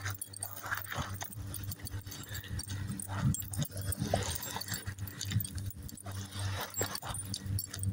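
Footsteps crunching irregularly on a pebble-and-sand beach, with a steady low hum underneath.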